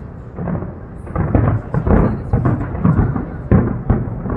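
Fireworks booming: a run of about six heavy bangs with rumbling between them, starting a little past a second in.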